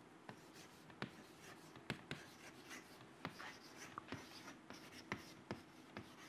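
Chalk writing on a chalkboard: faint scratching of the chalk stick, with sharp irregular taps as strokes begin on the board.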